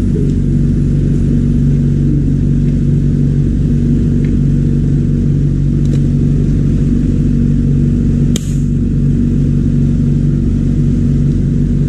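Steady low mechanical hum from a machine running at constant speed, with one sharp click about eight seconds in.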